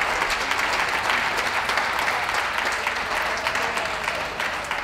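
Audience applauding: dense, steady hand-clapping from many people, easing off slightly near the end.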